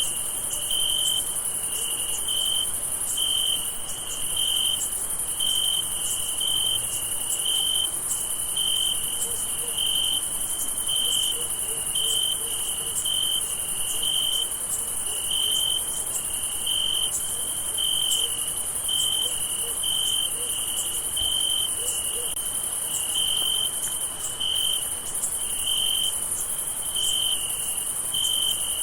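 Night chorus of crickets: a steady high-pitched trill under a lower chirp that repeats about once or twice a second.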